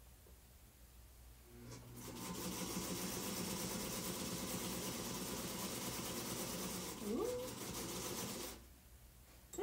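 Singer Featherweight sewing machine stitching through the quilt layers: it starts about two seconds in, runs at a steady fast rate for about seven seconds, then stops.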